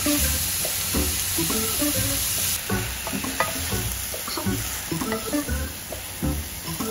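Cabbage, mushrooms and bacon sizzling in a ceramic-coated frying pan while a spatula stirs and scrapes them around. The sizzle eases about two and a half seconds in, as the pan is tilted and the food scraped out into a bowl.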